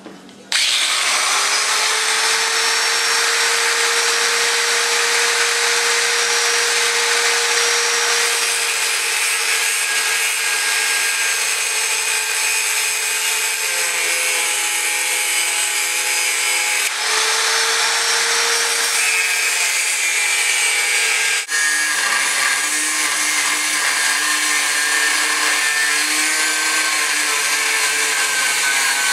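A power tool cutting through quarter-inch steel flat bar, starting about half a second in and running steadily almost to the end. A high, gritty noise carries a faint motor tone whose pitch shifts partway through as the cut loads the tool.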